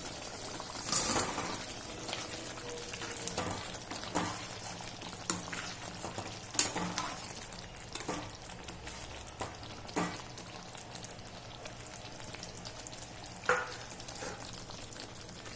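Thick curry gravy simmering and sizzling in a metal kadai as fried chicken koftas are tipped in and stirred with a metal spoon, which knocks sharply against the pan about half a dozen times.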